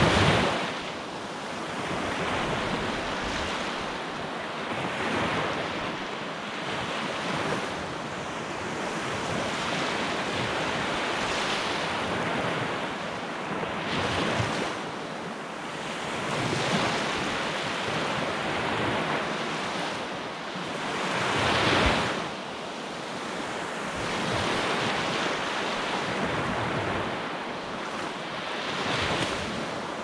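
Small surf breaking and washing up a sandy beach, rising and falling in surges every few seconds, the strongest near the start and about two-thirds of the way through.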